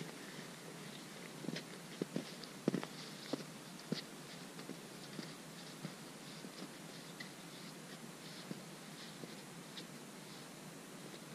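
Footsteps in snow and trekking poles tapping, a cluster of sharp clicks over the first few seconds that grows fainter and sparser as the walker moves away, over a faint steady hiss.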